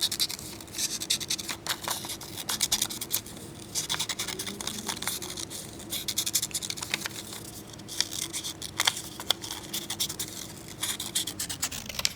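Scissors cutting through coloured paper: a run of quick, irregular snips with paper rustling as the shape is cut out.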